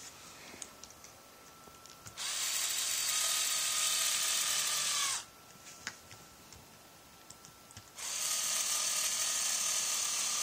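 Electric screwdriver running twice, about three seconds each time, driving the netbook's case screws back in; a few small clicks in between.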